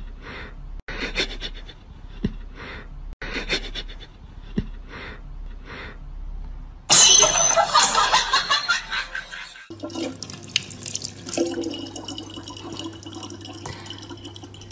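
A thin stream of tap water runs steadily from a faucet into a plastic bottle for about the last five seconds. Before it, a cat clip holds short separate sounds about once a second, then a loud, noisy burst of about three seconds.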